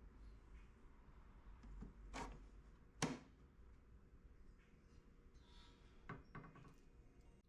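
Seat-bracket bolts and hardware being handled while a bracket is fastened to a bucket seat: a few faint knocks and clinks, the loudest about three seconds in and a couple more near the end, over a low steady hum.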